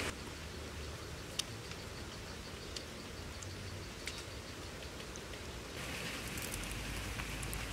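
Steady outdoor background hiss with a few faint clicks, growing louder about six seconds in.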